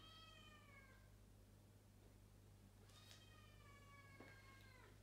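Munchkin cat meowing twice, faint and distant: a short meow, then a longer drawn-out one about three seconds in, each dropping in pitch at the end.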